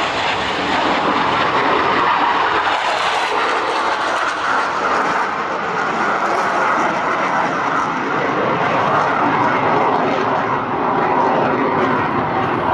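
Boeing F/A-18 Super Hornet jet with twin GE F414 engines roaring at high power as it flies past and pulls up into a steep climb. The jet roar is loud and steady, with no breaks.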